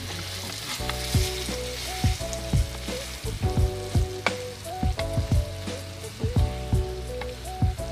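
Background music with a melody and a steady beat, over a sizzling hiss as hot stir-fried pork and young corn are spooned out of the pan onto a plate.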